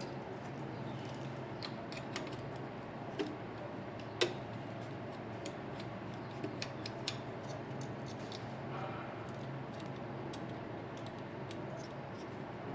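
Scattered light clicks and taps of hand work, about a dozen, the sharpest about four seconds in, over a steady low machine hum.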